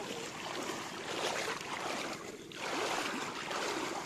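Footsteps wading through shallow seawater, the water sloshing and splashing around the legs with each step, with a brief lull a little over two seconds in.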